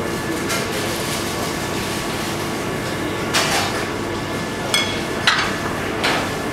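Steady rush of kitchen ventilation with a faint hum, and a few light clinks of metal plating tweezers against porcelain plates as flower petals are picked up and placed, about four in the second half.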